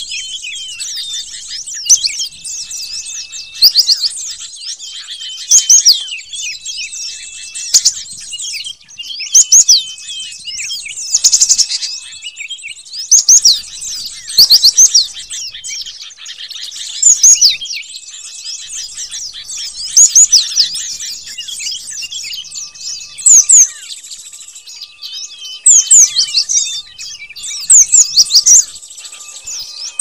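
Cinereous tit (gelatik batu) calls from a bird-lure track: dense high chirping, with loud bursts of quick sweeping notes every couple of seconds.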